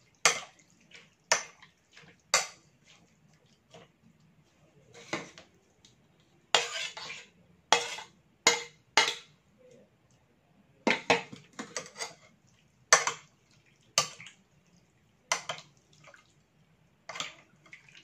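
Metal spoon clinking and scraping against a ceramic bowl while mixing a salad: irregular sharp clinks, a few of them running into short scrapes.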